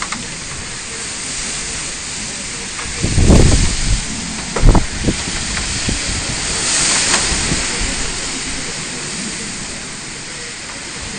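Typhoon gusts blowing with a steady rushing hiss. Two heavy gusts buffet the phone's microphone with deep rumbles about three and four and a half seconds in, and the hiss swells again a couple of seconds later.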